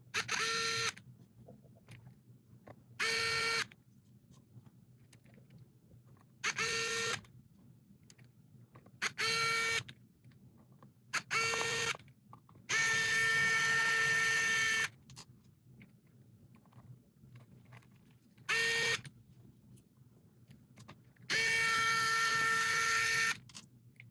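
Small low-power electric screwdriver whining in eight short bursts as it drives tiny M2.5 screws into an RC crawler wheel's beadlock ring. Most runs last about half a second; two, around the middle and near the end, run about two seconds each.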